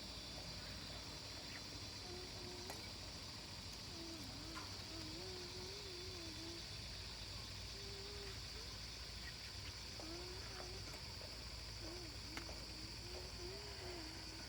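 Steady high-pitched chirring of insects, faint and continuous. From about two seconds in, a faint, distant sound wavers up and down in pitch in short stretches.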